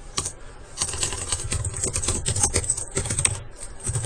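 Computer keyboard typing: an uneven run of key clicks.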